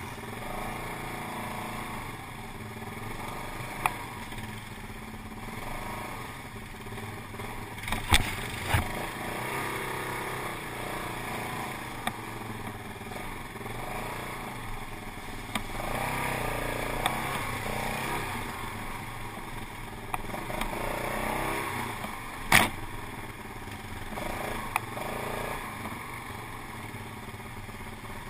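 Quad bike (ATV) engine running while riding, with a few sharp knocks, the loudest about eight seconds in and again about twenty-two seconds in.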